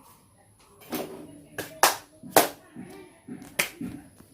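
Four sharp, separate strikes at uneven spacing, the two in the middle loudest, with faint voices between them.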